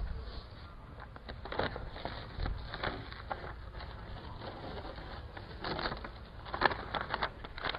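Blue masking tape being peeled off a minivan's freshly spray-painted side panel and crumpled in the hands: a scatter of short, faint rustles and crackles, a little busier near the end.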